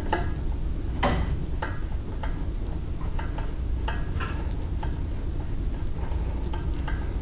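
Scattered light metallic clicks and clinks of a hand tool working the mounting bolts on a steel surface grinder attachment, some coming in short clusters, over a steady low hum.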